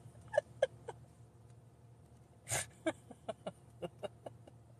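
A woman's stifled laughter behind her hand: a string of short, quiet giggles with one breathy burst about two and a half seconds in.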